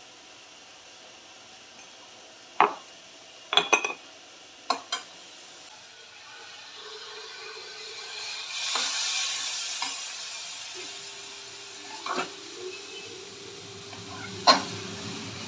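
A spoon clinks a few times against the steel wok and salt container. Then water poured from a steel kettle into the hot wok sets off a hiss and sizzle that swells and fades over a few seconds, followed by metal clunks as the kettle and pans are handled.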